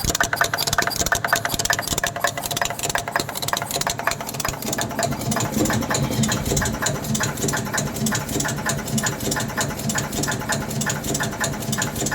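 Automatic gold chain-making machine with laser soldering running, a fast, even clicking of several strokes a second over a steady mechanical hum. The low hum grows stronger about five seconds in.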